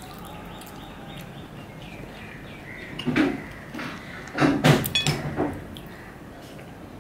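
Close-miked eating sounds as chutney is eaten by hand from a small ceramic bowl. There are two bursts of loud smacking and scraping, one about three seconds in and a longer one from about four and a half to five and a half seconds.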